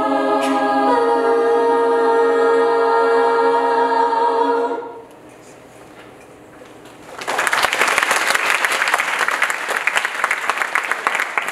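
A young women's choir holds a final chord for nearly five seconds, then cuts off together. After a short pause the audience breaks into applause.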